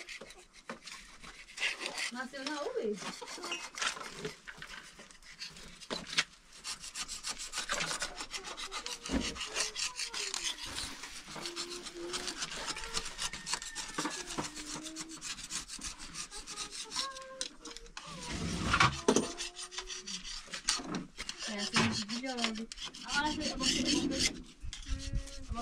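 Repeated hand scraping and rubbing strokes, irregular and closely spaced, going on throughout.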